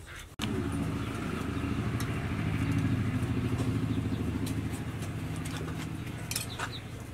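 A small engine running steadily. It cuts in abruptly about half a second in, rises a little, then slowly eases off.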